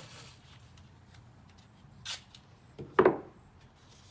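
Adhesive tape being pulled off its roll and torn: a brief rasp about two seconds in, then a louder short screech falling in pitch about three seconds in.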